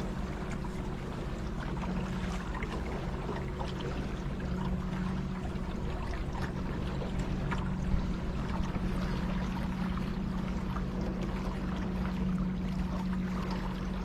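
A small boat's motor running at a steady speed, a constant low hum, with water rushing and splashing along the hull.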